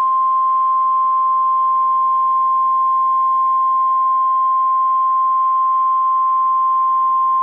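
NOAA Weather Radio warning alarm tone: a single steady, high-pitched 1050 Hz tone held without a break. It signals that a warning broadcast follows.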